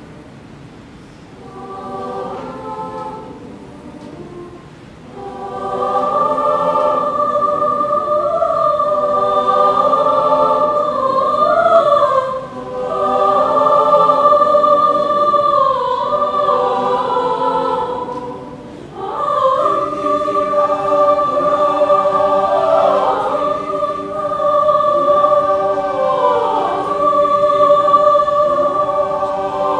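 Mixed chamber choir of young men and women singing a cappella, in close chords of a Romanian folk-dance song: soft at first, swelling loud about six seconds in, with two short dips before coming back in full.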